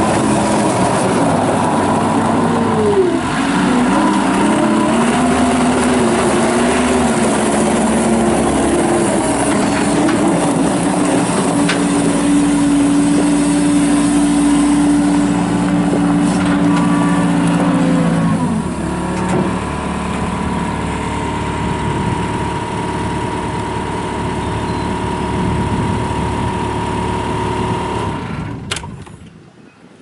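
Gehl R220 skid steer loader's diesel engine running under load as the machine drives about, its pitch rising and falling, then holding steady for several seconds before dropping. Near the end the engine is shut off and its sound dies away.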